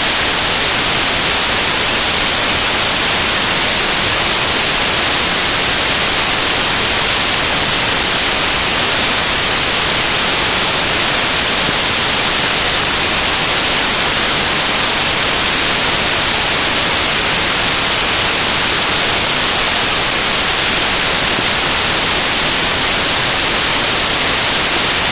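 Loud, steady static hiss like white noise, brightest in the highs, with no music or voices in it.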